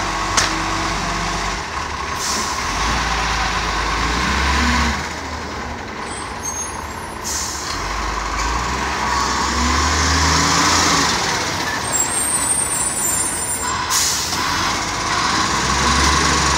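Iveco side-loader garbage truck's diesel engine running and revving up several times as the truck sets down a bin and drives off and past, with sudden hisses of air brakes about halfway through and again near the end.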